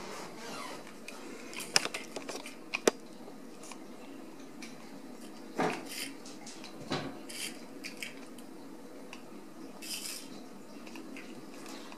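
A litter of Ragdoll kittens scrambling about on a tile floor, with scattered sharp clicks and light clinks. The loudest two clicks come about two and three seconds in, and softer scrapes and rustles follow later.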